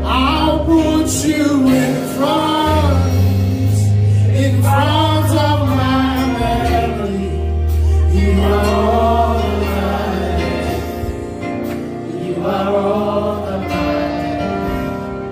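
Live gospel worship music from a church praise team: several voices singing, with a keyboard and long, held bass notes underneath.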